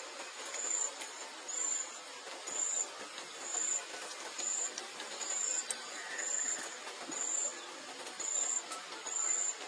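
A very high-pitched insect chirp repeating about once a second over steady outdoor background hiss.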